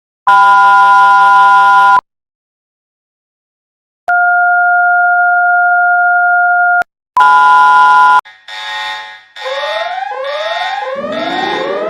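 Loud electronic emergency-alert tones: a harsh chord of several steady tones, a two-second gap, then a steady two-tone beep for about three seconds and another short chord blast. After that come repeated rising whoop sweeps, several a second, with a siren winding up in pitch near the end.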